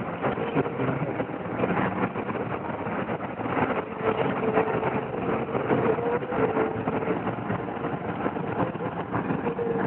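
Car driving along, heard from inside: steady engine and road noise.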